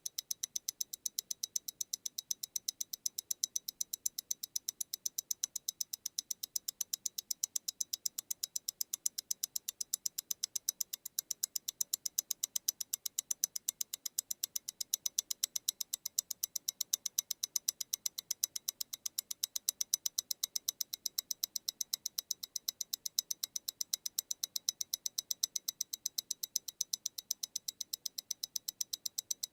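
MEMORIGIN Stellar tourbillon mechanical wristwatch ticking: its balance beats at 28,800 vibrations per hour, about eight fast, even, crisp ticks a second.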